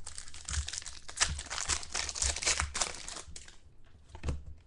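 Foil trading-card pack wrapper being torn open and crinkled by hand: dense crackling for about three seconds, then a few light clicks and taps.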